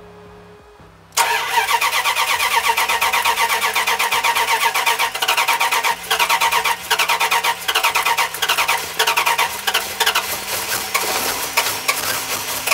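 Pickup truck engine cranking on its starter without catching. The fast, even cranking rhythm starts abruptly about a second in and pauses briefly a couple of times. It won't fire, a fault the owner puts down to wet wiring in the distributor cap after sitting in cold weather.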